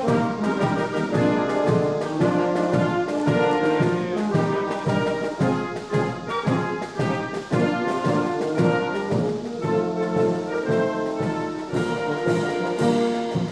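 A brass band playing ceremonial music, with notes held and changing in a steady rhythm.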